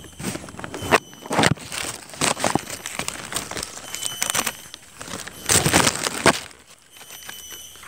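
Plastic bag crinkling and rustling in irregular bursts as it is handled, with small freshly caught river fish inside it; the loudest rustle comes a little after five seconds in.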